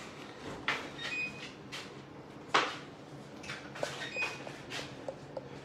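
Knocks and clatters of a baking tray and built-in oven being handled as scones are taken out, with one sharper thump about two and a half seconds in.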